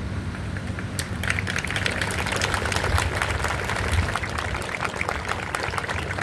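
Engines of fire trucks running steadily to pump water for a ceremonial water arch, a low hum. From about a second in, a dense, irregular patter of clicks and crackles sits on top of it.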